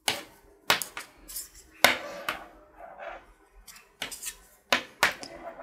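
Knitting needles (10 mm) clicking against each other while purl stitches are worked in thick yarn: about eight sharp clicks at uneven intervals.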